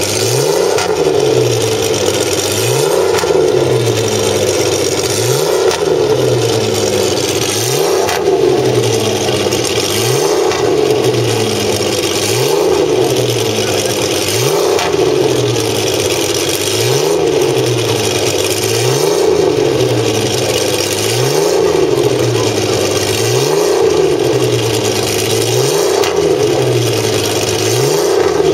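Maserati 250F Formula One car's engine warming up, the throttle blipped over and over: the revs rise quickly and die away more slowly, a little more than every two seconds.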